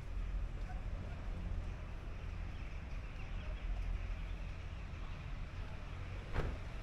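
Outdoor street ambience: a steady low rumble with a hiss of background noise. Near the end there is one short, sharp sound that falls quickly in pitch.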